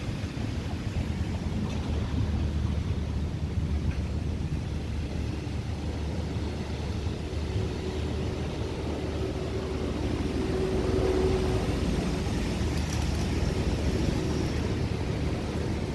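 A steady low rumble with a faint motor drone, a single held tone that grows a little louder about eight to twelve seconds in and then fades.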